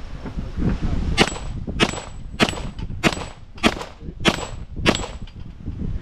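Seven pistol shots in quick succession, about 0.6 s apart, each followed by the brief ring of a steel target being hit.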